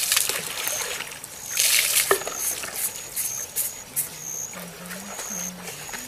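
Water poured from a container over someone's head, splashing into the river. It comes in two loud pours, one at the start and one about a second and a half in.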